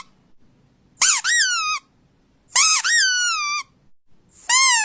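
Squeaky dog toy squeezed three times, each squeak jumping up in pitch and then sliding down over most of a second, with short silent gaps between. It is played to set off a dog's reaction.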